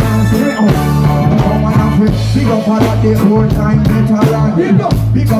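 Live reggae band playing: bass line, drum kit and guitar skank with a steady groove, vocal lines over it.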